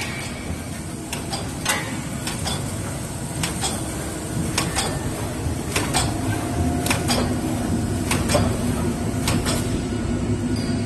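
Side-sealer film packaging machine running: a steady mechanical hum with irregularly spaced clicks and knocks.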